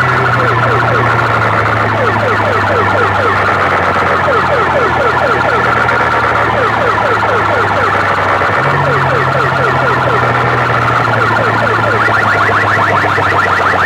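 DJ sound-box rig blasting a siren-style sound effect: fast, repeated pitch sweeps over a deep, steady bass tone that jumps higher about nine seconds in. It is very loud.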